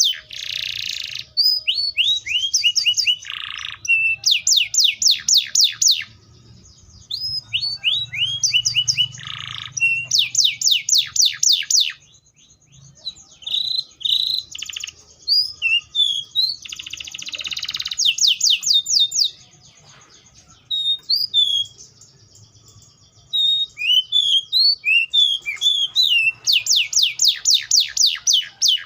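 Canary singing a long, varied song: fast trills of rapidly repeated down-sweeping notes alternating with short buzzy phrases and scattered single whistled notes, with a few brief pauses.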